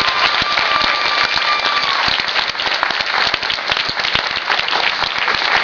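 Large audience applauding and cheering in a hall, dense steady clapping, with a held high tone over it in about the first two seconds.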